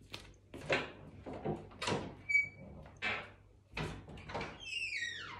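Household door and footsteps: a string of separate knocks and thuds, a brief high squeak a little over two seconds in, and a falling, creaking squeal near the end, like a door hinge.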